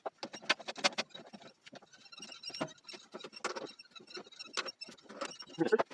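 Irregular run of light clicks and small knocks, with no motor running: hands working tools and the chuck at a stopped wood lathe.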